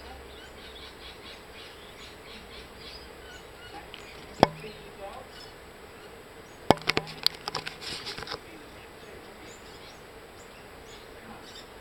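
Sharp clicks and knocks: a single one about four seconds in, then a quick run of several around seven to eight seconds, over a faint background with small chirps.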